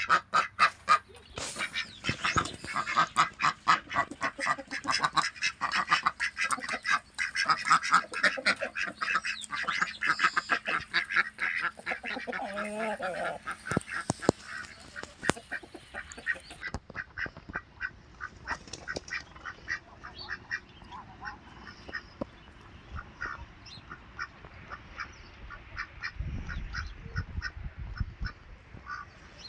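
Ducks quacking in a dense, rapid chorus that thins to sparser, quieter calls after about seventeen seconds.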